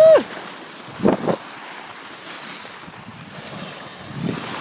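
Wind buffeting the phone's microphone over a steady hiss of skis sliding on snow. A short, loud shout falls in pitch right at the start, and a brief noisy burst comes about a second in.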